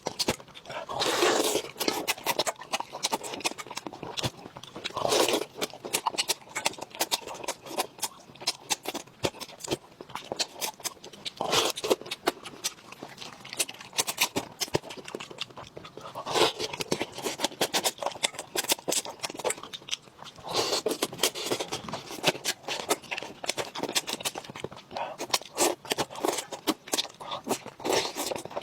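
Close-up eating sounds: steady, irregular crunching and clicking of chewing, with louder wet smacks every few seconds.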